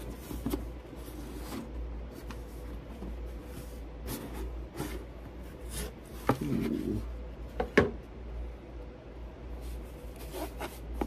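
A cardboard watch box being handled and opened: the cardboard rubs and scrapes, with a few sharp clicks and taps as the lid and sides come apart.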